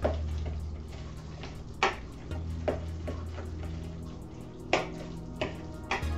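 A spoon stirring a wet loaf mixture in a mixing bowl, knocking sharply against the bowl about six times at irregular intervals, over background music with a low bass line.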